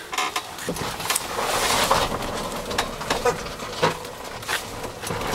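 Golf cart rolling down a steep concrete path: a steady rolling noise with scattered clicks and rattles from the cart.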